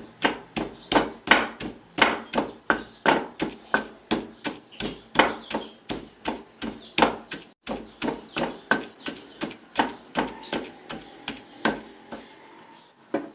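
Mortar and wooden pestle (kundi-danda) pounding onions, green chillies and tomatoes into a coarse paste: steady strikes about three a second that stop near the end.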